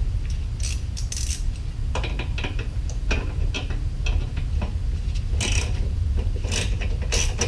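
A 1/4-inch socket ratchet clicking in short, irregular runs as it works the carburetor's mounting nuts off a lawn mower engine, over a steady low hum.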